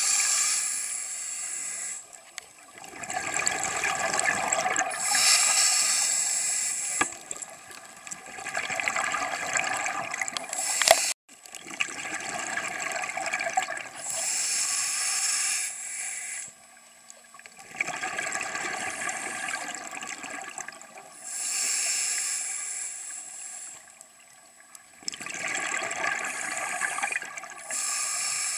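Scuba diver's regulator breathing heard underwater: a hissing inhale alternating with a gurgling rush of exhaled bubbles, repeating every few seconds. A sharp click about eleven seconds in.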